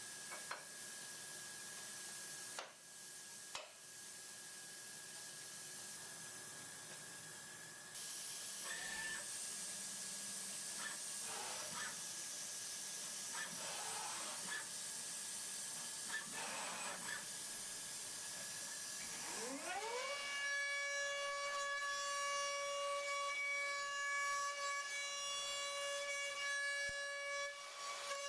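DATRON M8Cube high-speed milling machine running: a steady hiss with a few clicks and short rising and falling whines. About 20 s in, the spindle winds up into a steady high-pitched whine.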